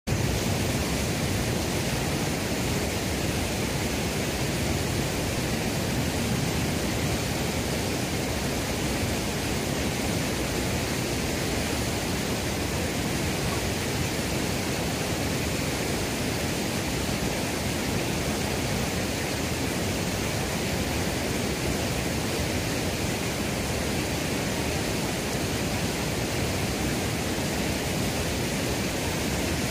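A steady, even rushing noise that does not change, with no distinct knocks or other events standing out.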